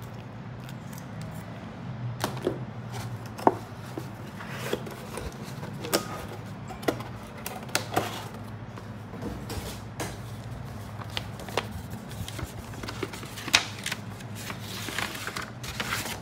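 Cardboard packaging and a kraft-paper envelope being handled on a desk: scattered taps and knocks, with a denser paper rustle near the end, over a steady low hum.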